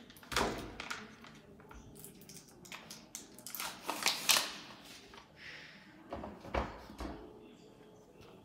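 Curd-cheese packaging being torn open and handled by hand: a few sharp crinkles and rustles of plastic wrapping with short knocks on the counter.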